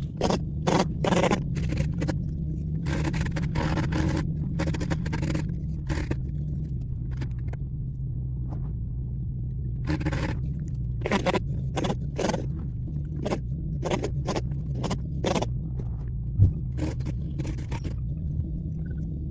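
A small engine running steadily at low speed, with irregular bursts of scraping and rustling over it, typical of branches and brush being handled and cut during tree trimming.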